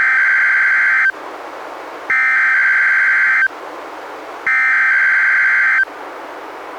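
NOAA Weather Radio SAME (Specific Area Message Encoding) header: three bursts of data tones, each a little over a second long and about a second apart, with radio hiss in the gaps. This digital header opens an Emergency Alert System Required Weekly Test and triggers alert receivers.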